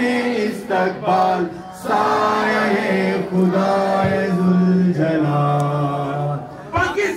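A man chanting in long, drawn-out sung notes, the pitch held steady for a second or more at a time.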